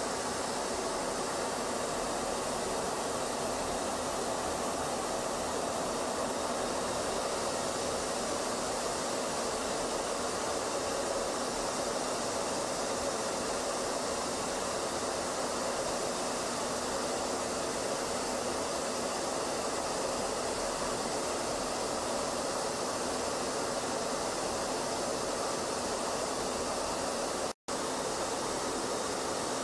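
Steady, even rushing noise of jet flight, with no rise or fall in pitch. It cuts out for an instant near the end.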